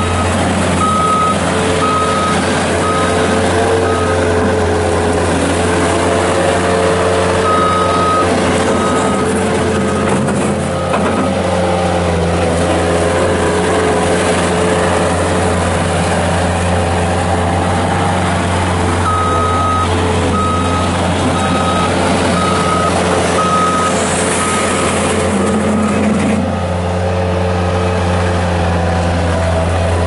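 1997 Bobcat 763 skid steer's Kubota diesel engine running steadily as the loader drives and turns on gravel, with its backup alarm beeping in three spells of even beeps.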